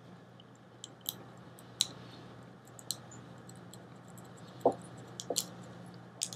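Pencil on paper while writing and sketching: faint scattered clicks and light taps, about eight of them, over a steady low hum.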